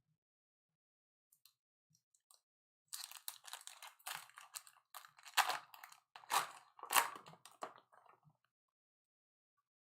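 Crackly crinkling and rustling of a trading-card pack wrapper being torn open and the cards handled. It starts about three seconds in, runs for about five seconds with its loudest crackles near the middle and end of that stretch, then stops.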